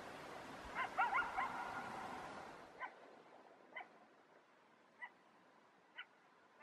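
A wild canid calling: a quick run of high yips about a second in, then single short dog-like barks roughly once a second.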